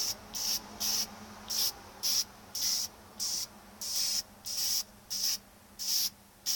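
Aerosol can of clear coat sprayed in short, even hissing bursts, about two a second, for a light dusting coat.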